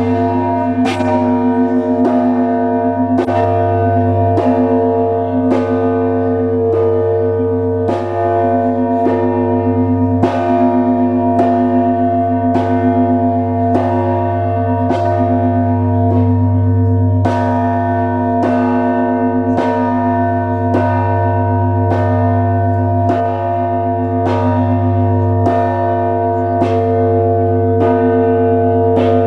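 Russian Orthodox monastery bells ringing together, several bells struck about once a second over the long ringing hum of a large bell.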